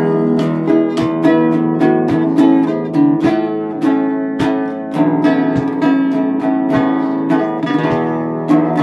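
Double-neck contraguitar with a fretted neck and unfretted bass strings, played in a steady rhythm of plucked and strummed chords over ringing bass notes. It is being test-played after a neck repair.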